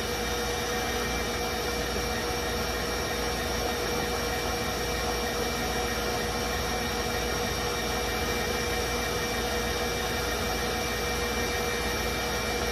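Electric stand mixer running steadily with its whisk attachment, a constant motor whine over a whirring hiss, as it beats eggs and sugar toward a meringue-like foam.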